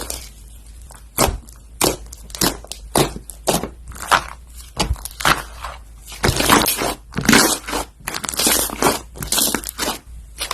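Slime being worked by hand: an irregular run of short pops and clicks, about two a second, with longer, denser stretches about six seconds in and again around eight to nine seconds in.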